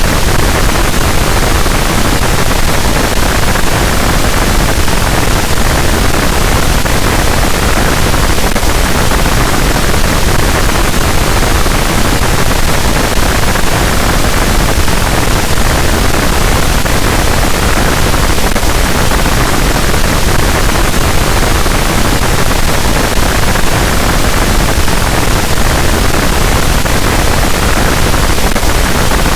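Harsh noise wall: a dense, loud, unchanging wall of static-like noise across the whole range, with no rhythm, pitch or breaks.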